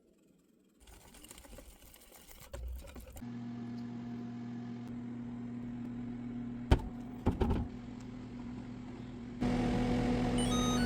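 Microwave oven running with a steady electrical hum, with a couple of sharp clicks partway through. The hum gets louder about nine seconds in, and a few short beeps of differing pitch come just before the end.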